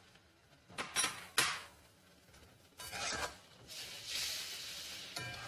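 A spatula stirring and scraping paneer and gravy in a metal kadhai, with a few sharp clinks against the pan about a second in. The wet masala sizzles in a steady hiss over the high flame near the end.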